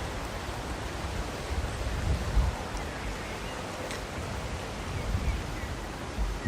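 Strong wind rushing across the microphone, with irregular gusts buffeting it.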